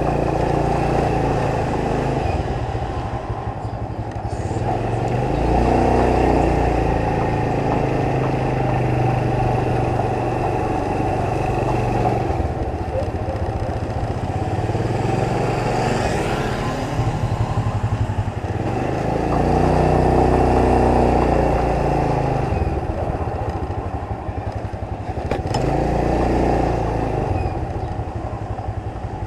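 Motorbike engine and street traffic noise, continuous, with the engine pitch rising and falling as it speeds up and slows down, about a fifth of the way in, around two thirds, and again near the end.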